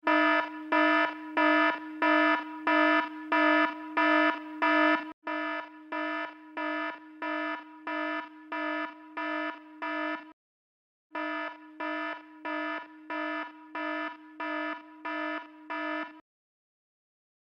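Electronic alarm beeping: a buzzy tone repeating a little under twice a second. It drops in loudness about five seconds in, pauses briefly around ten seconds, then resumes and stops near the end.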